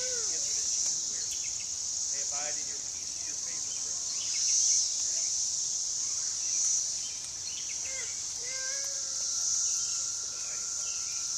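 Steady high-pitched insect chorus, swelling and easing every two or three seconds.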